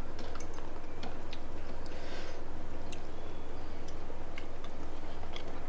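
Close-miked eating sounds: chewing, with scattered small clicks and smacks, over a steady low hum.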